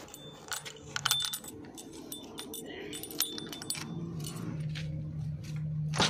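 Keys jangling and sharp metal clicks from the cab door lock of a JCB 3DX backhoe loader as the key and handle are worked, the loudest clicks about a second in. A steady low hum comes in from about four seconds.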